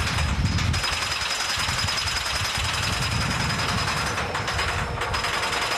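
Roller coaster chain lift clattering steadily as the car is hauled up the lift hill, a rapid mechanical rattle of chain and anti-rollback ratchet.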